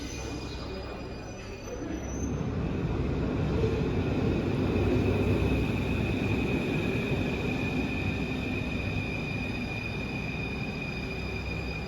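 Paris Métro Line 2 MF 01 train running through the station: a rumble that swells about two seconds in and slowly eases off, with a steady high-pitched whine over it.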